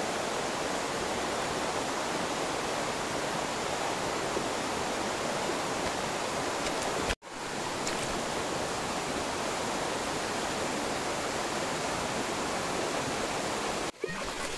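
Shallow rocky stream flowing, a steady rush of water. It breaks off for an instant about seven seconds in, then carries on.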